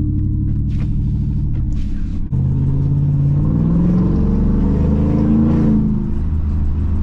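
Truck engine running while driving. About two seconds in, the revs climb steadily for around three seconds, then drop back as it eases off.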